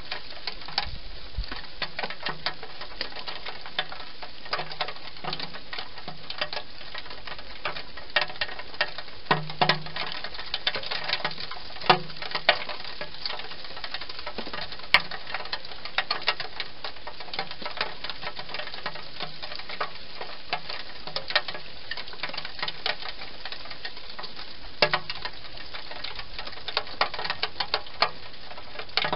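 Wild hedgehog eating from a bowl, chewing and smacking in rapid, irregular clicks, with a few louder clacks.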